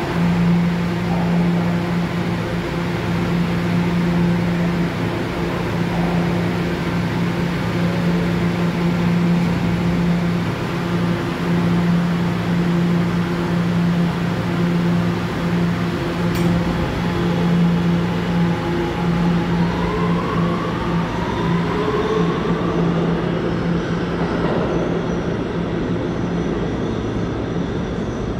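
Subway train of the R211 type, its electrical equipment giving a steady hum while it stands, then a rising propulsion whine about two-thirds of the way through as it pulls away and accelerates.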